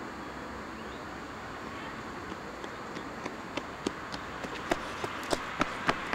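Running footsteps of a person on a paved path, about three strides a second, growing louder as the runner comes close.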